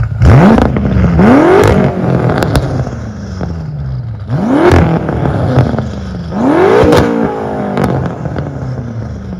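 Tuned BMW S63TU twin-turbo V8 exhaust, with catless downpipes, a resonator delete and a valved axleback muffler, revved four times. Each rev climbs quickly and then falls away slowly, and there are sharp cracks at the top of the last two.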